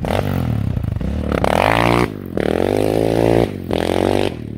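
Yamaha Raptor 700 sport ATV's single-cylinder engine accelerating hard away, the pitch climbing in several pulls with short breaks between them as it shifts up through the gears.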